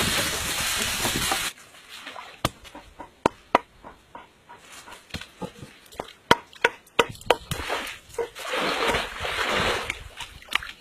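Irregular hard wooden knocks as a log is pounded down onto a wooden stake, with water sloshing around the workers near the end. A loud rushing noise opens and cuts off sharply about a second and a half in.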